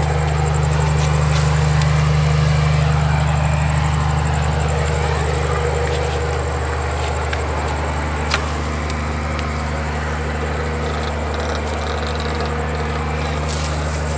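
A steady low hum, like a running engine or machine, with a hiss of noise above it and one sharp click about eight seconds in.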